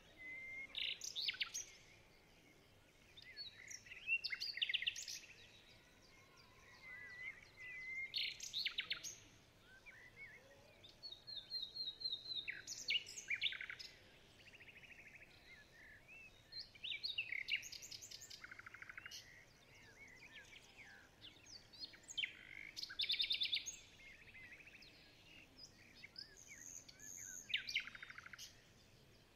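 Birds chirping and singing in short, high trilled phrases that come in clusters every four to five seconds over a faint steady background.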